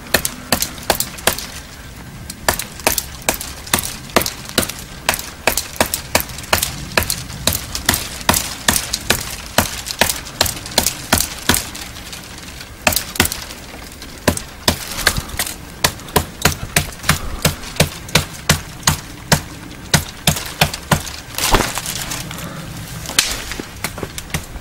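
A Gerber survival knife chopping repeatedly into a thin green branch to cut it off for a fishing rod. The blows come as a rapid series of sharp wooden knocks, a few a second.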